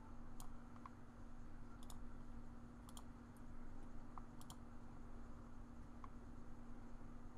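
Computer mouse clicking a handful of times, about a second apart, some as quick double clicks, over a low steady hum.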